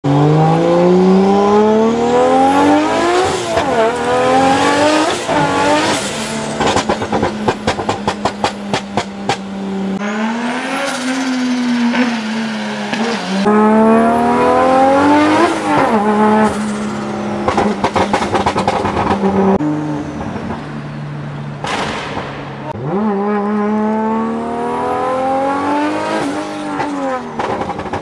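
Single-turbo Nissan RB26 straight-six in a Skyline, heard from inside the cabin, pulled hard through the gears: the engine note climbs steeply and drops back at each upshift, several times, with steady cruising between pulls. A fast string of exhaust pops and crackles comes about a quarter of the way in, and a short hiss about three-quarters through.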